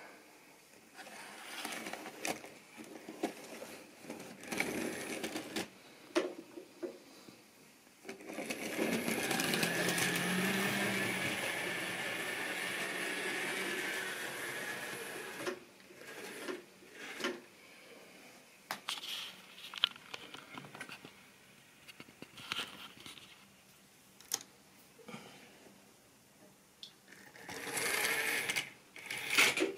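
Model railway locomotive running on the track: a small electric motor whirring, with the wheels clicking over rail joints and points. The whirr is steady and loudest for several seconds in the middle, with scattered clicks before and after.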